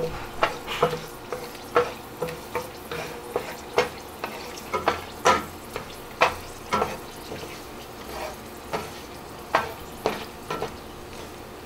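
Slotted wooden spatula stirring and scraping a nonstick wok, with knocks about twice a second, over a light sizzle of dried red chillies and a bay leaf frying in hot oil at medium heat.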